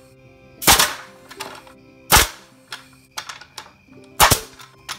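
Numax SFR2190 21-degree pneumatic framing nailer firing three times, about a second and a half to two seconds apart, each a sharp bang as a 2-inch round-shank nail is driven into a board. The air pressure has been turned down, but it is still too much pressure.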